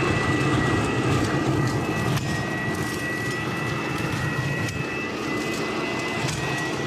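WORX WG512 Trivac 12-amp electric leaf vacuum-mulcher running on its highest setting, sucking up leaves and shredding them with its metal impeller. A steady rush of air carries a constant high whine, with occasional faint ticks.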